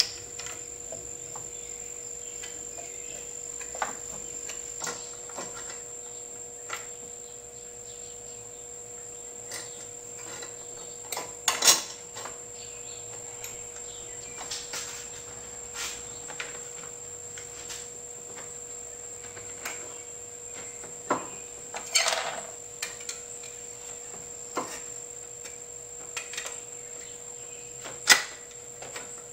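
Scattered clicks and light metallic clinks of small carburetor parts being handled and fitted back onto a lawn mower engine, with a few sharper knocks, over a steady high thin whine.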